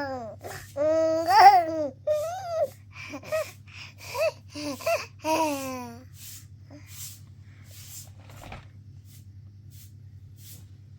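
A high-pitched voice babbling wordlessly in short phrases that rise and fall in pitch, stopping about six seconds in. A steady low hum runs underneath.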